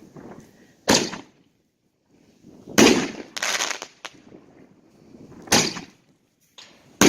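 5-inch aerial firework shells (Certified Black Label American Super Shells by Big Fireworks) going off from a fused rack: four sharp bangs about two seconds apart. The second bang has a longer noisy tail.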